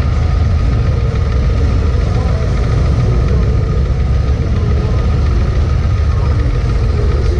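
Bagger motorcycle's engine running loud and steady at low revs as the bike rolls slowly, with no revving.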